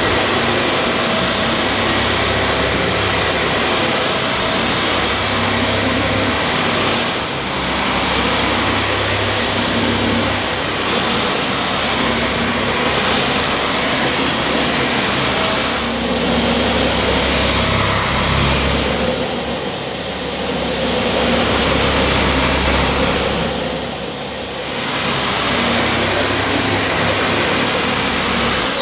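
Dyson Ball Animal Multifloor bagless upright vacuum cleaner running with its brush bar on, over plush pile carpet on the deep pile setting. It runs steadily with a high whine, and the level swells and dips every few seconds.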